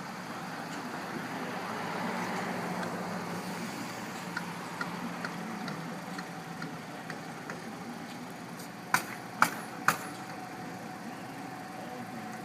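An engine running steadily, swelling slightly about two seconds in. About nine seconds in come three sharp knocks, each a half-second or so apart.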